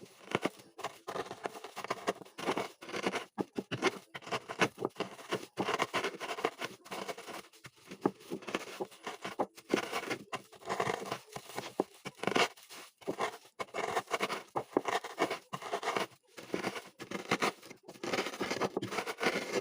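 Cookies in a tied plastic bag being crushed with a rolling pin: continuous irregular crunching with the bag crinkling, as the cookies break down into fine crumbs.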